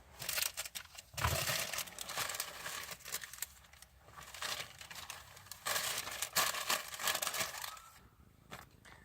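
Paper receipts rustling and crinkling as they are handled, in uneven spells with short pauses and small clicks.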